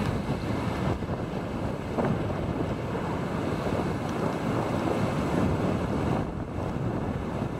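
Wind buffeting the microphone in gusts, over the wash of breaking surf.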